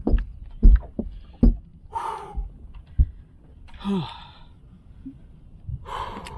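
A man breathing hard and gasping in excitement after landing a big bass, with three loud breaths about two seconds apart. Several sharp knocks and thumps sound in the first three seconds.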